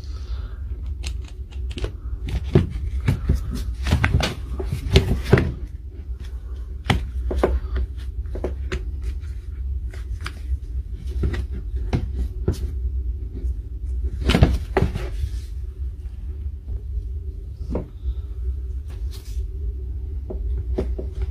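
Irregular clicks and knocks of plastic and metal parts being handled and fitted as a brushed cordless impact wrench is reassembled, busiest a few seconds in and again about two-thirds of the way through, over a steady low hum.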